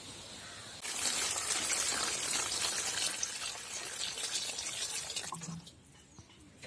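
A stream of water poured onto lemons in a stainless steel plate, splashing steadily as the fruit is rinsed. It starts suddenly about a second in and stops shortly before the end.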